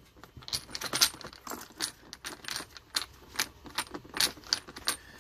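Light metallic clicks and clinks as a screwdriver works a ground screw down on a gang of wired duplex outlets, their metal mounting straps and the copper ground wire knocking together. Irregular ticks, roughly two or three a second.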